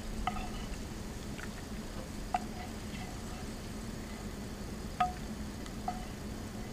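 A utensil clinking and scraping against a frying pan while scrambled eggs are served: four sharp metallic clinks, each ringing briefly, over a low steady hum.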